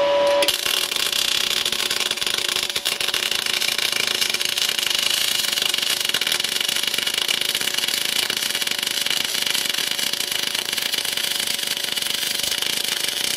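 MIG welding arc from an R-Tech MIG180 inverter welder with a spool gun, feeding 0.8 mm wire into 2.2 mm aluminium: a steady hiss and crackle that strikes up about half a second in and runs on without a break. The voltage has been turned up and the wire speed left the same, to get more penetration.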